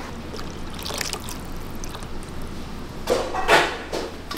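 Kitchen work sounds: liquid pouring or sloshing over a steady low hum, with a few louder clattering knocks about three seconds in and again near the end.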